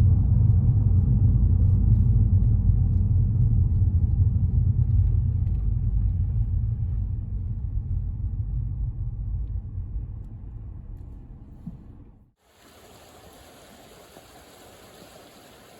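A deep, steady low rumble that fades away over about ten seconds. After an abrupt cut, the faint, even rush of flowing floodwater at a ford.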